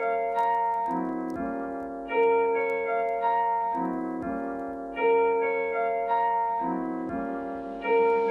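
Background music: a keyboard, piano-like in tone, playing a gentle repeating phrase of chords that strike and fade, with the phrase starting again about every three seconds.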